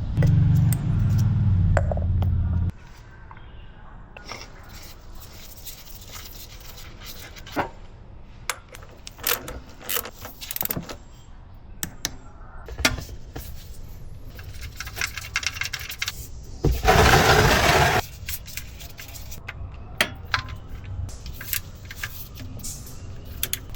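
Metal hand tools and parts clinking and scraping in a string of sharp clicks, as in wrench work during an oil change. A low steady hum stops abruptly near the start, and a loud hissing burst lasting about a second comes about two-thirds of the way in.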